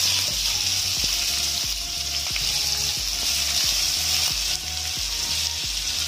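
Sliced onions frying in hot oil and ghee with whole spices, a steady sizzle, while a wooden spatula stirs them with a few faint scrapes.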